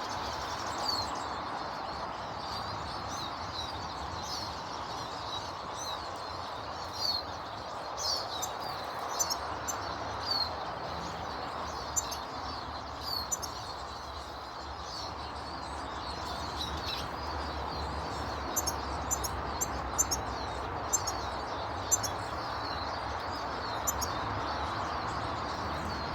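Small garden birds chirping: short, falling chirps repeat throughout, and a run of sharper, louder high notes comes in the second half, all over a steady background noise.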